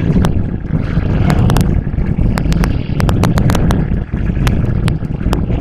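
Hybrid Electric Train running along the track, heard from inside the passenger car: a steady heavy low rumble with frequent irregular sharp clicks and rattles.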